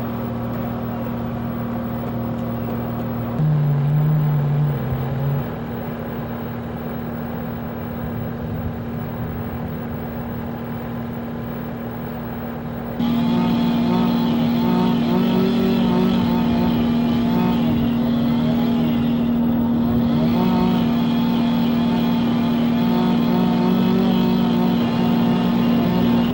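Small engine running steadily at high speed. Its note shifts abruptly about a third of the way in and grows louder around halfway.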